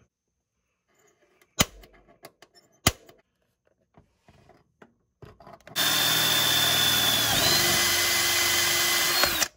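Two sharp snaps of an automatic center punch marking a hole in the car's sheet metal. Then a cordless drill runs steadily for nearly four seconds to drill the punched hole, its whine shifting in pitch about halfway through.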